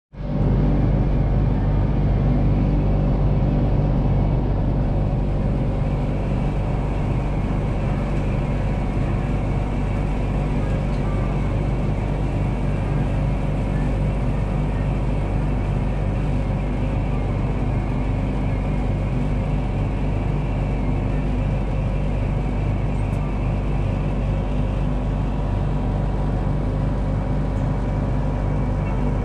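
A steady machine hum inside a Ferris wheel gondola: a deep low drone with several fixed tones, even and unchanging throughout.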